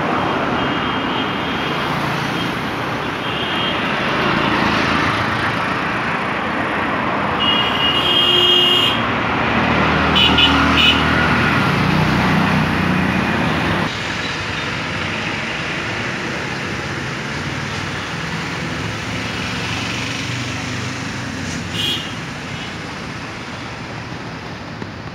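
Road traffic heard from a moving vehicle: the steady engine and tyre noise of cars and motorcycles close by, with a few short horn toots about 8 and 10 seconds in. The noise drops suddenly about 14 seconds in.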